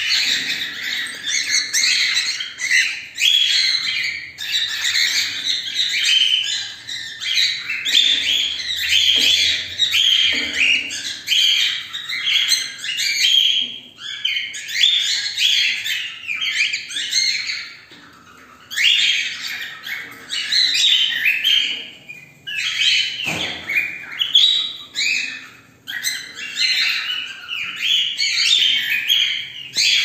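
Cockatiels chirping and calling in a dense, rapid stream of high chirps, broken by a few short pauses.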